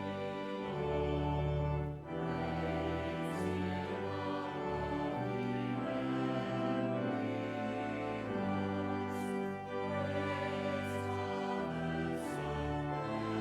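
Slow church music: a choir singing long held chords with instrumental accompaniment, the harmony shifting every second or two.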